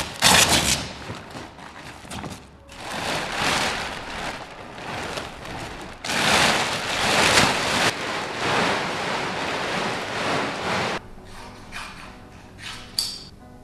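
Lightweight nylon spinnaker cloth rustling and crinkling as it is hauled out of a large sail bag, in uneven surges; it drops away about eleven seconds in.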